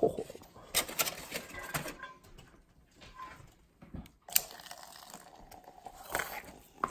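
Aluminium foil crinkling in short bursts as it is pulled back from a plate of rested steaks, with a sharp click partway through and light taps of a fork and knife near the end.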